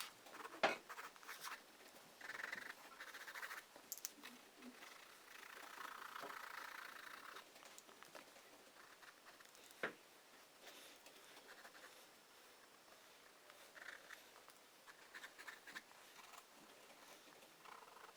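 Pencil strokes scratching on paper, a series of short and longer scrapes, with two sharp taps, the first about a second in and the second about halfway through.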